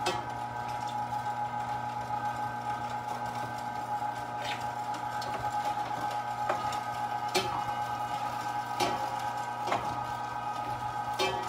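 1 hp Carnivore electric meat grinder running steadily with a motor hum and whine while meat is pushed down its feed throat with a stomper. A few short sharp knocks and clicks come now and then over the running motor.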